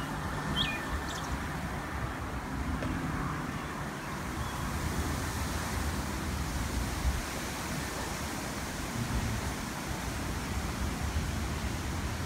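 Steady outdoor noise: a low rumble and hiss, like wind across the microphone, with no siren audible. A couple of short high chirps come about half a second to a second in.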